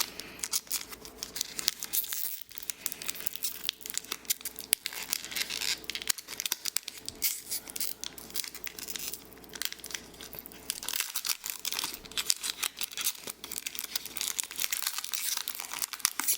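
Stiff plastic-and-card retail packaging of a Disney Lorcana booster pack being torn and crinkled open by hand, with continuous irregular crackling and ripping. The packaging is hard to open without scissors.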